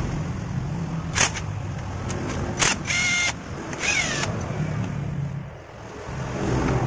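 A vehicle engine running with a steady low hum, over which metal parts give two sharp clicks as they are handled. A short high squeak follows, then a brief falling squeal.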